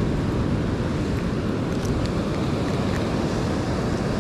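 Steady wind rumbling on the microphone over the wash of ocean surf on a beach.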